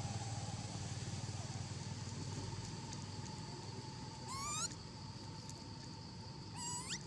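Two short, high, rising squeaky calls from a macaque, about four seconds in and again near the end, over a steady drone of insects.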